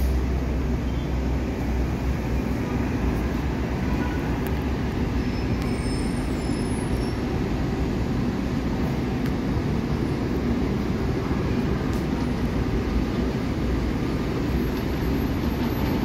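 Steady low rumble of traffic and rail noise on an elevated subway platform. An R188 7 train is approaching from a distance and grows slightly louder near the end.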